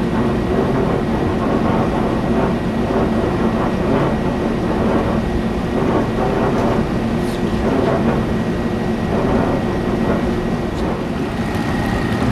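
Belt-driven rooftop kitchen exhaust fan running, a steady mechanical rumble with a thin, steady high whine over it. The technician bets the noise comes from the fan wheel's shaft bearing, which has dried out and lost its lubrication.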